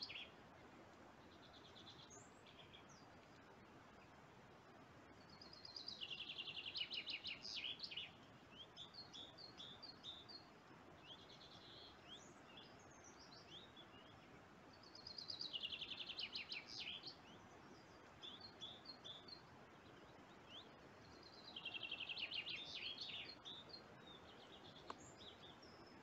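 Faint songbird singing: three quick trilled phrases, each about two seconds long, coming roughly six, fifteen and twenty-one seconds in, with scattered short chirps between them.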